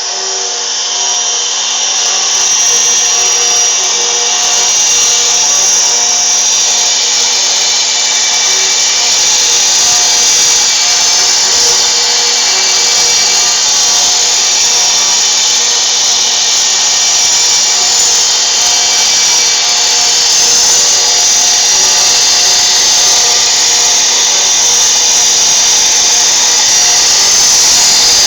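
CNC router spindle running steadily with a high whine, its bit cutting into wood. It swells a little over the first couple of seconds, then holds.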